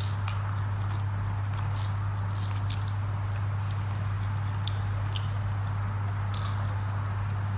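Fingers squishing and mixing rice with soft fish curry on a plate, with chewing and small wet mouth clicks scattered throughout. A steady low hum runs underneath and is the loudest part.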